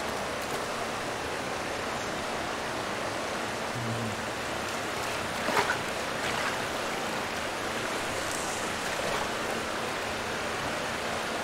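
Shallow winter stream running steadily over and between snow-covered rocks and ice. One short, sharp click about five and a half seconds in.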